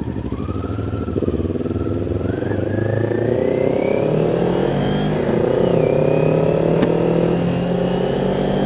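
Kawasaki Ninja 400 parallel-twin engine through an Akrapovic slip-on exhaust, pulling away with revs climbing over several seconds. The pitch drops briefly about halfway through, then holds steady.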